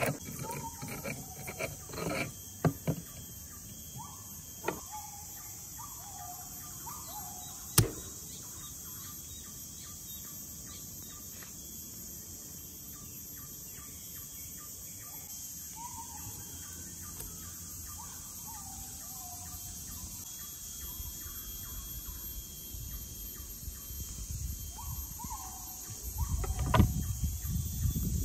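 A stone pestle grinding turmeric in a volcanic-stone mortar, scraping and knocking for the first few seconds. A knife then knocks sharply on a wooden cutting board a couple of times. Throughout there is a steady high-pitched insect drone, with a bird repeating short falling chirps in several bursts and a low rumble near the end.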